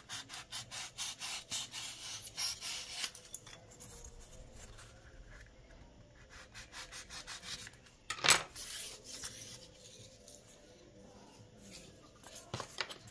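A blade cutting into a styrofoam ball, with quick back-and-forth sawing strokes for the first three seconds. Lighter scraping follows, with one loud, sharp scrape about eight seconds in.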